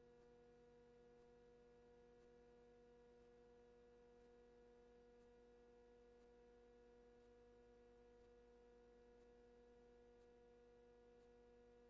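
Near silence with only a faint, steady hum.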